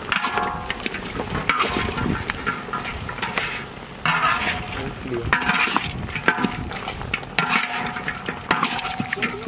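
A flat metal spatula scrapes and turns goat meat, chilies and shallots in a large wok, with repeated irregular scrapes about once a second. The food sizzles as it stir-fries.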